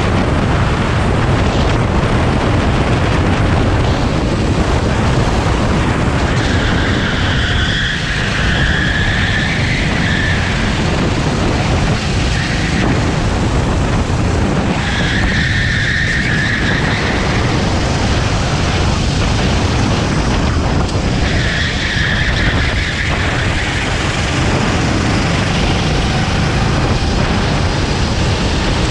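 Rental kart's Honda GX390 single-cylinder four-stroke engine running hard, heard onboard with a dense rush of engine and road noise. A higher steady whine surfaces for a second or two three times, about every seven seconds.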